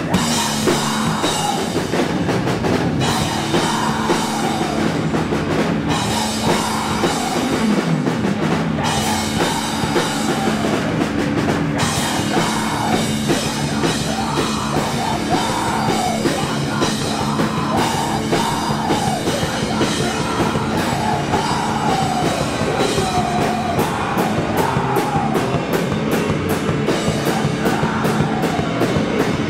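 Live doom/sludge metal band playing: heavily distorted guitar and bass with a full drum kit, a woman's voice singing over it. Fast cymbal strikes pile up in the last few seconds.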